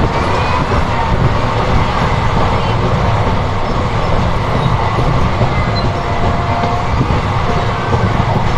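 Steady running noise of the West Coast Express passenger train at speed, heard from one of its own coaches: wheels rolling on the rails with no break or change.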